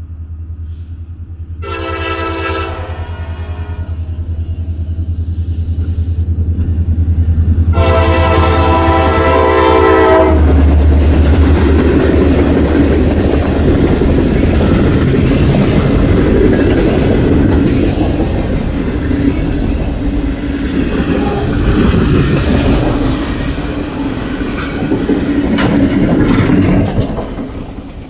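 Norfolk Southern diesel freight train approaching and passing fast. The deep drone of the locomotives' diesel engines carries under the horn, which gives a short blast and then a long one. After that the freight cars go by with a loud rolling rumble and a rapid clatter of wheels over the rail joints, dropping away near the end.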